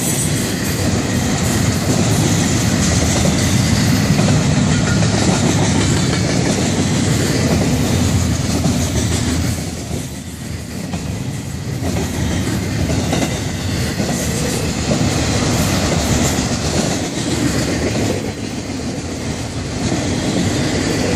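Florida East Coast Railway freight train's cars rolling past at close range, double-stack intermodal well cars followed by autorack cars, steel wheels running on the rails in a loud, continuous noise that eases briefly about halfway through.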